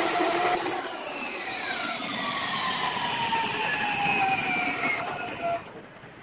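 Spring-charging motor of a high-voltage circuit breaker's operating mechanism whining as it winds up the closing spring. Its pitch falls steadily as it runs, and it drops away sharply near the end.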